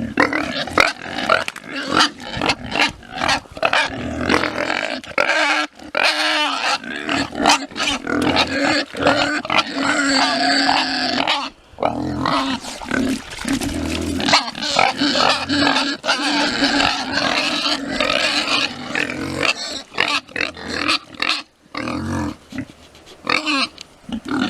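Pigs grunting at close range, with many short clicks and noises mixed in.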